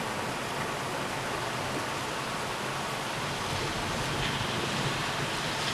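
Heavy rain pouring down in a thunderstorm, a steady unbroken hiss.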